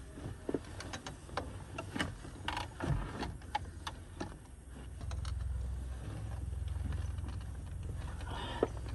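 Flat-blade screwdriver clicking and scraping against the metal inside a Holset HX35 turbo's compressor inlet while prying at the silencer ring's retaining wire. About five seconds in, a low steady rumble sets in under the clicks.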